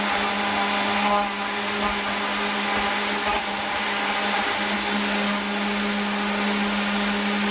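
Electric sander running steadily on wood, a constant motor hum under a hiss.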